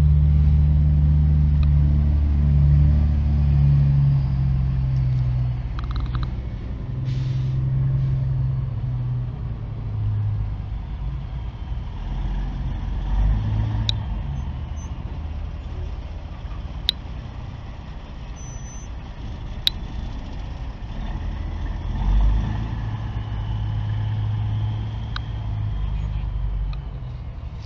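Heavy vehicle engine running nearby, a deep steady rumble that is loudest for the first few seconds and then eases off but keeps going, with a couple of sharp clicks.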